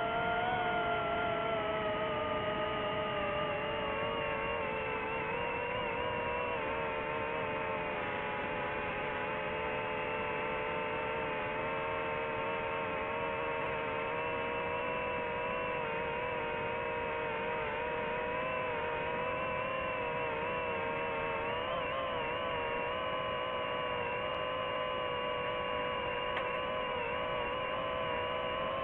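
DJI FPV drone's motors and propellers whining steadily in flight, several tones together. The pitch sinks slightly over the first few seconds, then holds, wavering a little about twenty seconds in.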